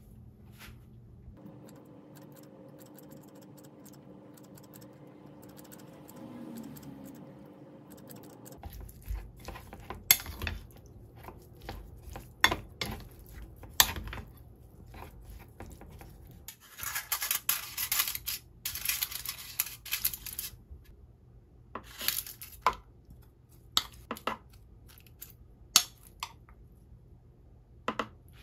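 Handling noises: scattered sharp clicks and clinks of small hard objects, with a dense run of clatter a little past the middle.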